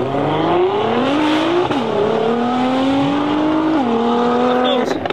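A tuned 800 hp Nissan GT-R's twin-turbo V6 with a Capristo exhaust accelerating hard. The engine note climbs, then falls back at upshifts about two and four seconds in, and climbs again after each.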